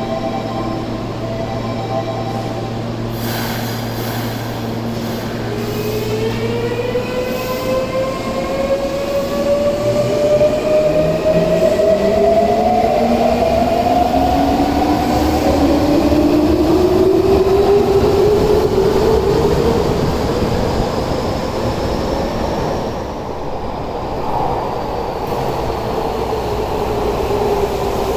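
Subway electric train pulling away from an underground platform: after a steady low hum while it stands, its traction motors whine in several tones that rise in pitch as it gathers speed, over wheel and rail noise.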